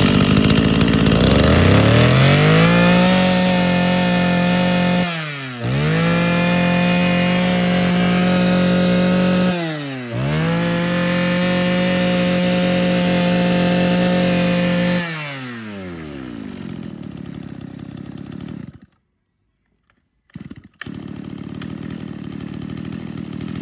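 Mitsubishi TL231 brush cutter's 23cc two-stroke engine revved up to full throttle three times, each held high for about four to five seconds with a quick dip between, revving very fast. It then drops back to idle and stops about nineteen seconds in; a quieter steady running sound returns near the end.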